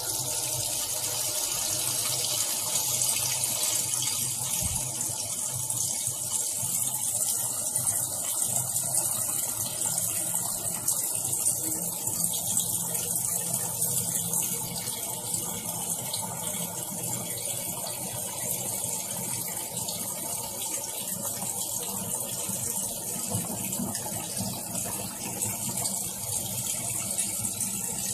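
Steady rush of water with a low hum underneath, from a Tangarus portable washing machine running with water in it. It starts abruptly.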